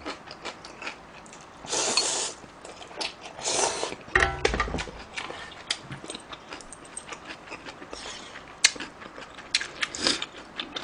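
Close-miked eating sounds: two loud slurps of ramen broth or noodles, then chewing with many small clicks and taps of a wooden spoon against a bowl and a pot.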